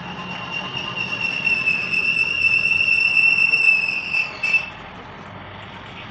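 A steady high-pitched whistling tone over background noise, growing louder and cutting off about four and a half seconds in.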